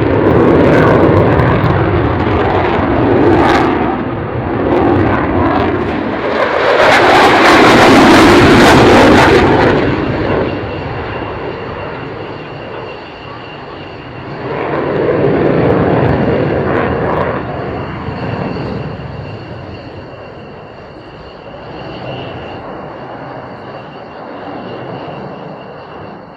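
Eurofighter Typhoon's twin EJ200 turbofan engines during a display pass. The jet noise swells to a loud peak about eight seconds in, drops sharply around ten seconds, swells again briefly around fifteen seconds, then fades away.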